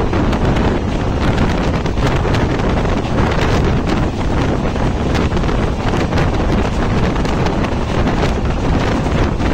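Wind buffeting the microphone at the open window of a fast-moving passenger train, over the steady roar of the coach running on the rails with a constant patter of short clicks and rattles.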